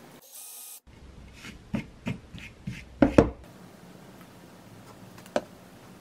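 Light knocks and clunks of wooden pieces and tools being handled on a worktable, the loudest a couple of clunks about three seconds in, with a single click near the end. A brief burst of hissing noise comes just before the knocks.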